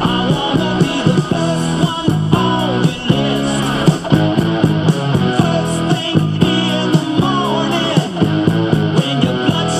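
Emerson CTR-965 boombox playing rock music with guitar through its speakers, loud and continuous with a steady beat.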